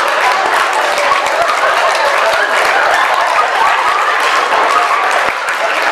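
Audience applauding steadily, many hands clapping, with voices mixed in over the clapping.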